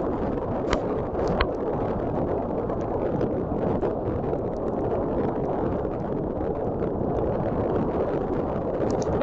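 Typhoon wind and heavy rain: a steady rushing noise of strong wind buffeting the microphone, with a few sharp ticks about a second in and again near the end.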